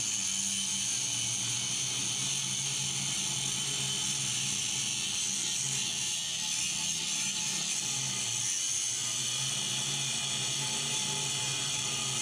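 A machine running steadily: a low hum with a high hiss over it.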